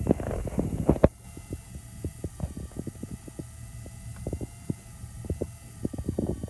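Electric fishing reels on bent rods in their holders, the motor giving a faint steady whine that wavers slightly under load, with many soft irregular knocks. The first second is a loud low rumble with knocking, which stops abruptly.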